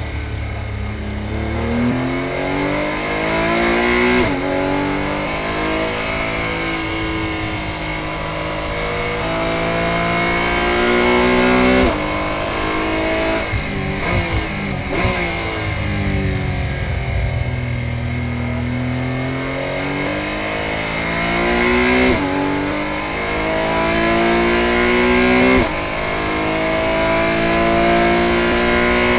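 Porsche 718 Cayman GT4 Clubsport's flat-six engine heard from inside the cockpit, accelerating hard through the gears at high revs. The pitch climbs and then drops abruptly at each quick upshift, several times, with a lift-off and falling revs for a corner about halfway through. A constant high whine sits beneath it throughout.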